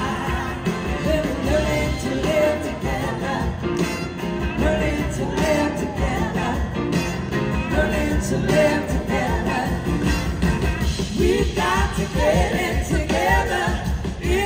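Live rock-soul band playing, with a woman's lead vocal sung into a handheld microphone over electric guitar and drums.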